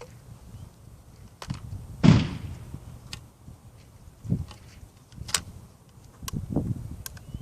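A single shot from an 1883 Parker Bros 12-gauge side-by-side hammer shotgun about two seconds in, a sharp blast with a short echoing tail. A few sharp clicks and knocks follow.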